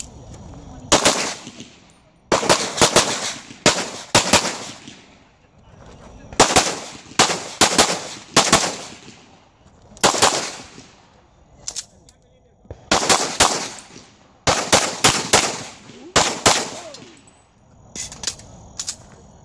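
Open-class competition pistol fired rapidly in quick pairs and short strings, with brief pauses between groups as the shooter moves between targets. Each shot has a short echoing tail.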